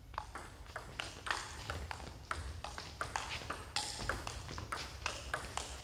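Table tennis rally: the ball ticking sharply back and forth off the paddles and the table, about three ticks a second.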